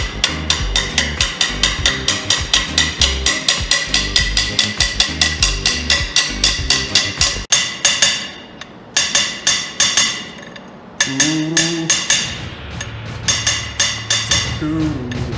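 Background music with a fast, clicking percussive beat over a bass line. It drops out briefly twice in the second half.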